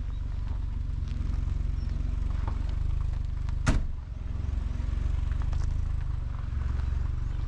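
A car engine idling with a steady low rumble, and a single sharp knock a little past halfway through.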